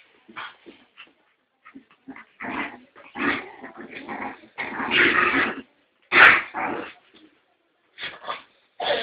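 Two puppies play-fighting, growling and yipping in short irregular bursts, loudest about five and six seconds in.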